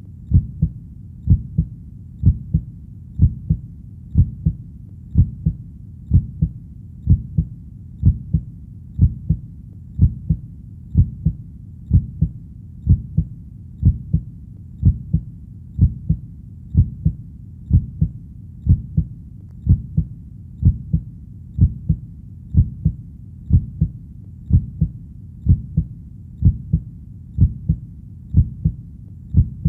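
Heartbeat sound: a steady, even rhythm of low double thumps (lub-dub) that runs without a break.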